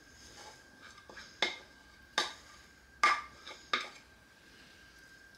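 Four sharp clinks of a ceramic bowl knocking on the rim of an enamelled pot as shredded cheese is tapped out of it, each less than a second apart.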